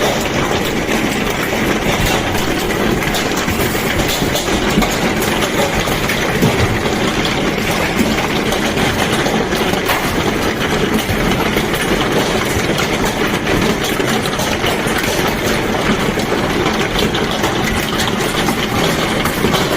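Large hailstones hammering down in a dense, continuous clatter of countless impacts.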